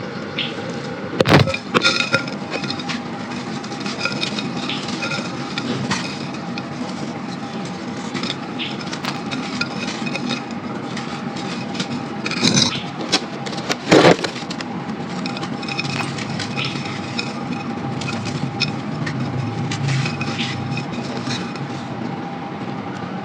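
Dry, crunchy sand clumps crumbling and cracking in a clay pot: continuous gritty crackling with many small clicks, and a few louder sharp cracks near the start and about halfway through, over a faint steady hum.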